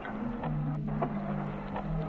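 Lo-fi ambient music played from a vinyl record: low sustained notes that step to new pitches, over a hiss, with sharp clicks about twice a second.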